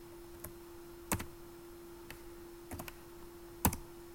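Computer keyboard keys pressed one at a time, a handful of separate clicks spaced out, with two louder strokes about a second in and near the end.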